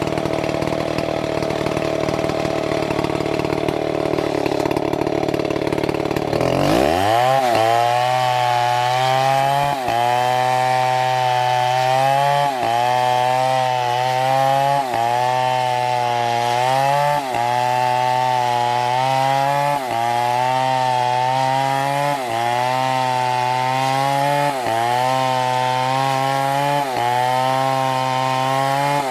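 Chainsaw running roughly, then revved up about six seconds in and held at high speed as it cuts into wood. Its pitch drops briefly and recovers about every two and a half seconds as the chain loads up in the cut.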